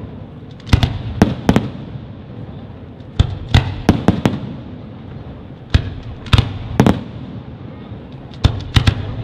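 Fireworks display: about a dozen sharp bangs of bursting shells at uneven intervals, several coming in quick clusters, over a continuous low rumble.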